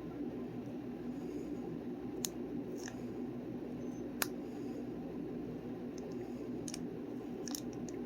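Trading cards and foil packs being handled: a few faint sharp clicks and scrapes as the cards are flipped and slid, over a steady low room hum.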